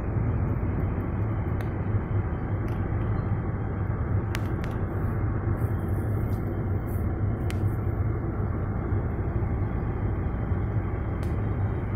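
Steady driving noise of a car heard from inside its cabin: an even low rumble from the road and engine, with a few faint clicks.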